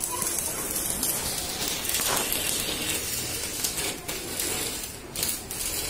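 Stick-welding arc from an ARC 200 PRO inverter welder being used to cut through a roof sheet: a steady crackling hiss that starts abruptly, with short dips in loudness, as the electrode burns into the metal and throws sparks.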